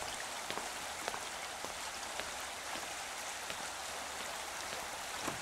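Steady rushing of running water, with faint footsteps of hard-soled shoes on brick paving about twice a second.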